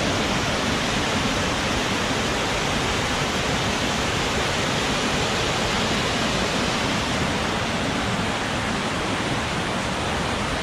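Waterfall cascading over rocks at close range: a loud, steady rush of falling and splashing water.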